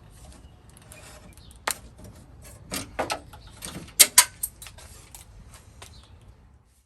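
A few sharp clicks and knocks of hard parts being handled, the loudest a close pair about four seconds in, over a low steady hum; the sound cuts off just before the end.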